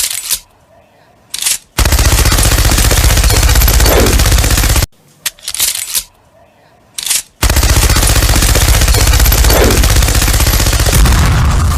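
A rapid rattle of very fast repeated shots or impacts, about three seconds long, played twice with a short gap; a falling tone runs through the middle of each burst.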